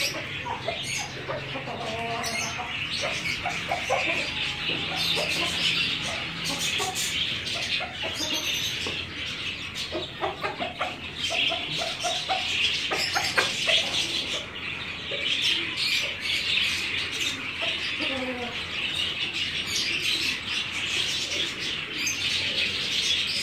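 Desi chickens in a yard: scattered short clucks over a constant high chorus of chick peeping, with pecking taps and a flurry of wing flaps near the end.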